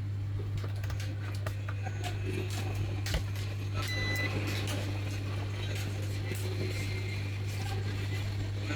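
Steady low electrical hum on a repair bench, with scattered light clicks and a short electronic beep about four seconds in.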